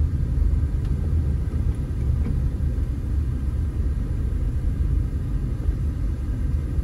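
Steady low rumble of a moving car heard from inside the cabin: engine and road noise while driving along a street.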